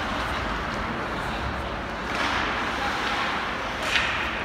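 Ice hockey rink ambience: a steady noisy wash of arena sound, with a sharp knock right at the start and another, louder one about four seconds in.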